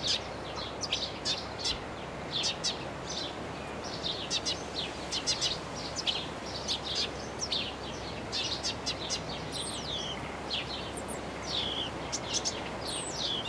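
Eurasian tree sparrow singing: a steady run of short chirps, two or three a second, over a low background noise.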